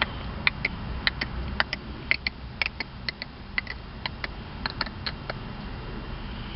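A run of light, sharp clicks, mostly in quick pairs at about two pairs a second, stopping about five seconds in, over a steady low rumble.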